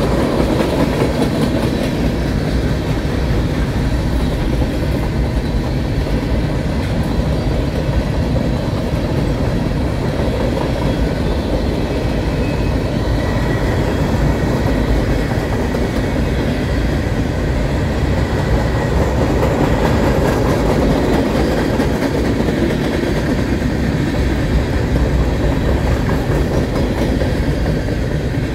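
Freight cars of a long train rolling past, tank cars then covered hoppers: a steady, loud rumble of steel wheels on the rails.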